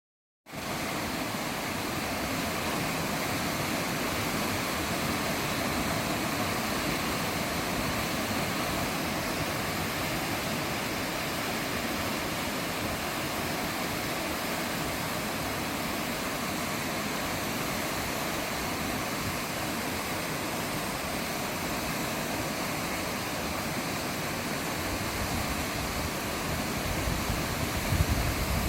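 Waterfall: a steady rush of falling water, with a few low thumps near the end.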